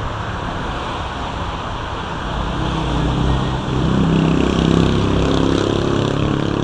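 Street traffic: cars driving past on the road, with one car's engine and tyres growing louder and at their loudest about four to five seconds in as it passes close.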